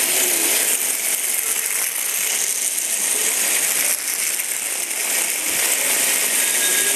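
Several Hexbug Bobble Bots buzzing and rattling steadily as their vibration motors skitter them across a hard floor.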